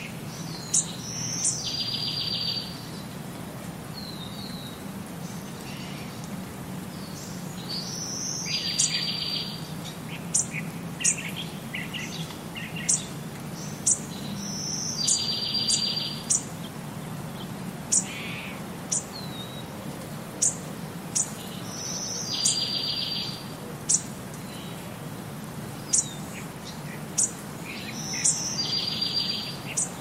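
A songbird repeating a short buzzy trill, introduced by a brief higher note, about every seven seconds, with sharp high chips about once a second, over a steady hiss of rain.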